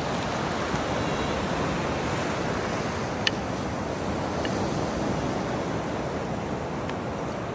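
Steady wash of surf breaking on a sandy beach, with one sharp click a little over three seconds in.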